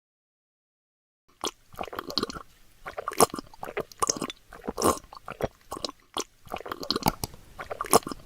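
Hands working small craft materials for a miniature model, making irregular crunching, clicking and rustling noises that start after about a second of silence.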